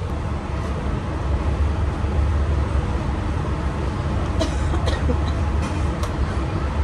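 Steady low rumble of shop background noise, with a few light clicks and taps between about four and six seconds in as a plastic water bottle is handled.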